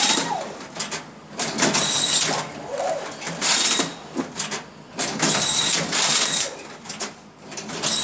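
Fully automatic strapping machine running its strapping cycle: repeated whirring bursts of the strap feed and tensioning motor with a high whine, about five in a row, each lasting about half a second.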